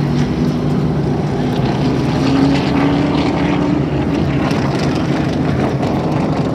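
Late model stock cars' V8 engines running as a pack of cars circles the oval, a steady engine drone with one car's note louder and rising a little around two to three seconds in.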